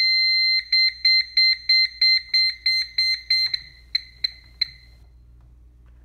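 Security system's fire alarm sounding: a loud, steady high electronic tone for about a second, then rapid beeping about four times a second. The beeps slow, falter and stop about five seconds in, which the owner puts down to a short in the wiring.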